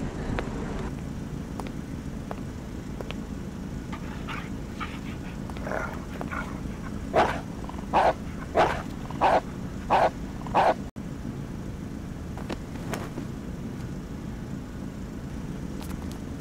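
Sniffer dog barking six times in a quick series, about three barks every two seconds, over a steady low vehicle rumble.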